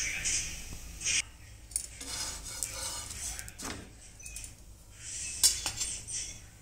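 Scattered clinks and knocks of kitchen utensils against a flat griddle pan (tawa) with a paratha cooking on it, the sharpest knock near the end.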